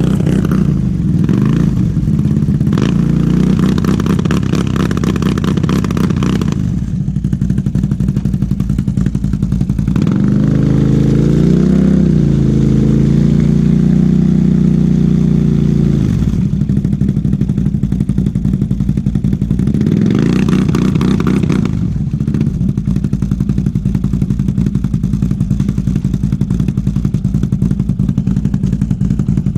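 ATV engine idling in a stuck quad, blipped up to higher revs for several seconds about a third of the way in and again briefly past the middle, as the rider works it free of deep mud.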